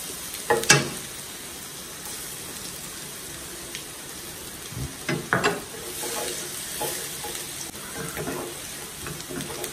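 Minced garlic sizzling steadily in hot oil in a pan, stirred with a wooden spatula that gives a few short knocks and scrapes against the pan.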